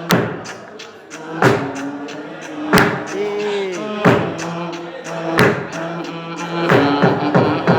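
Beatboxing through a microphone: heavy vocal kick-drum hits about every second and a third, with lighter clicks between them, over a held hummed bass tone. A short falling vocal slide comes about three and a half seconds in.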